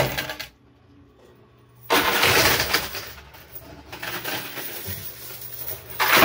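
Coins clattering in a coin pusher machine as a load is pushed over the shelf edge and falls. A loud clattering rush starts about two seconds in and tapers off, and another starts right at the end.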